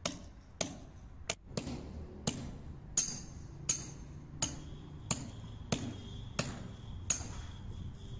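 Hammer striking metal in about a dozen steady blows, roughly one every two-thirds of a second, each with a short metallic ring. The blows stop about a second before the end.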